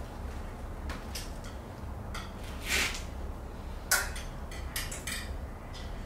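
Several light, irregular metallic clinks and short scrapes of tools and parts being handled while working on a motorcycle during an oil change, over a low steady hum.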